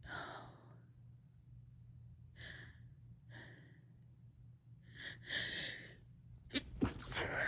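A woman's short, noisy breaths and gasping intakes as a sneeze builds, then near the end a quick cluster of sharp, stifled sneezes, the loudest sounds here.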